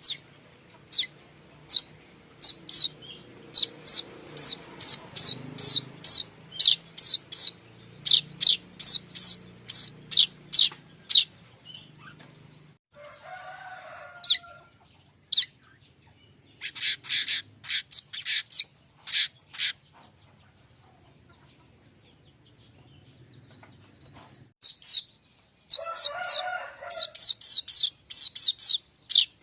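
Streaked weaver (manyar kembang) song: bouts of short, sharp high chirps at about three a second, with pauses between the bouts. Twice, a lower, rougher burst of sound breaks in.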